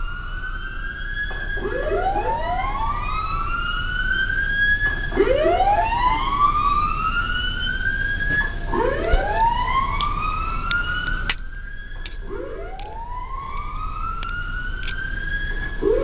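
Recorded siren tone played through a homemade speaker siren rig: a rising whoop that climbs in pitch over about three seconds, drops back and starts again, about five times in a row. A few sharp clicks sound about two-thirds of the way through.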